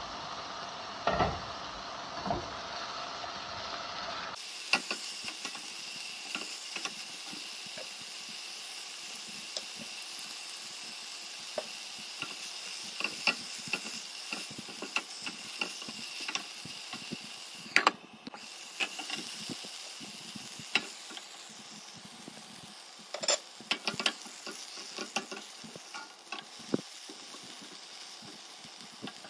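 Bitter melon stir-fry sizzling in a nonstick frying pan, with a silicone spatula scraping and tapping against the pan as it is stirred, scattered clicks over a steady frying hiss.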